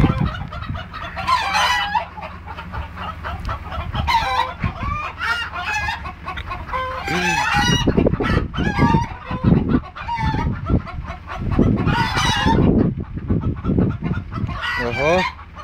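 Chickens clucking in bursts, with a rooster crowing, over low rumbling noise that is strongest through the middle.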